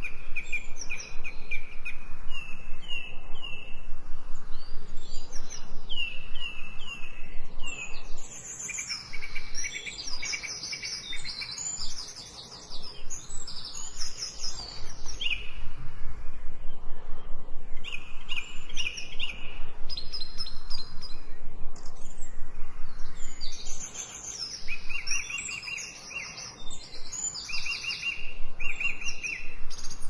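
Several songbirds singing and chirping in overlapping phrases of high, quickly repeated notes and short trills, over a faint steady background hiss.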